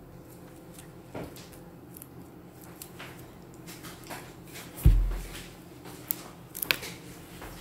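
Quiet room with scattered small clicks and knocks, and one dull thump about five seconds in.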